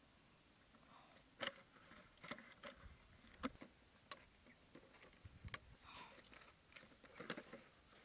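Faint handling noises: a few sharp, scattered clicks and taps as a plastic bottle on a bamboo-stick frame is fitted and tipped.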